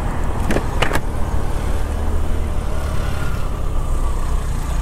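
Steady low rumble of a scooter ride through city traffic, heard from the rider's seat: the scooter's engine and road and wind noise, with passing cars around it. Two short sharp clicks come about half a second and a second in.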